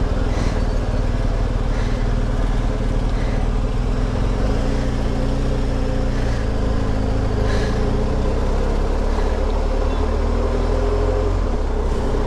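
BMW R 1250 GS motorcycle's boxer-twin engine running steadily while riding, over a low rumble of road and wind noise.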